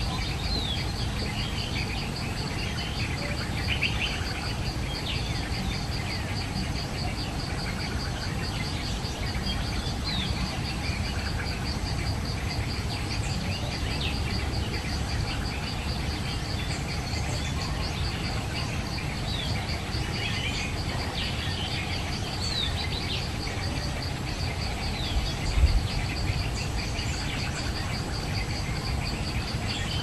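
Outdoor forest sound: an insect trilling steadily in fast, even pulses, with scattered short, falling bird chirps over it. A low rumble runs underneath, with one dull bump late on.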